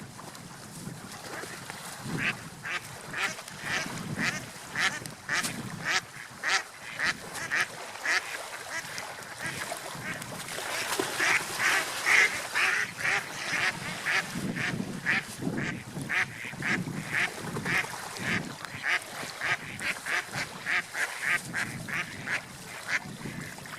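Ducks quacking: a long run of short quacks, two or three a second, thickest about halfway through.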